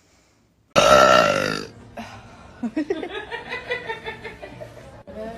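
A woman's loud burp about a second in, lasting about a second and dipping slightly in pitch, followed by fainter voice-like sounds.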